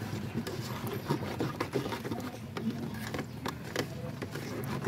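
A run of irregular light clicks and knocks over steady low background noise, with a sharper knock near the end.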